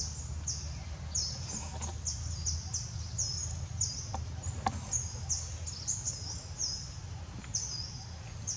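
Birds chirping: a dense run of short, high, hooked notes, several a second, over a steady low rumble, with one sharp click a little past the middle.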